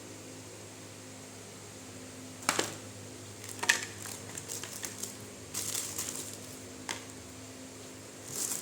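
Packaging being handled: a few sharp clicks and short crinkling rustles, over a steady low electrical hum.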